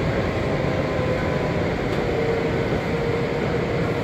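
Cabin running noise of a Washington Metro 7000-series railcar at speed: a steady rumble of wheels on rail, with a faint steady whine coming in about halfway through.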